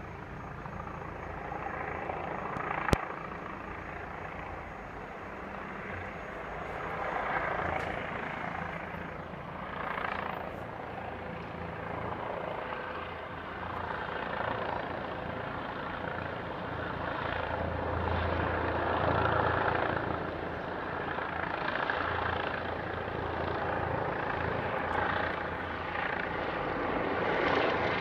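Police helicopter circling overhead, its rotor and engine noise swelling and fading and growing louder in the second half as it comes closer. A single sharp click sounds about three seconds in.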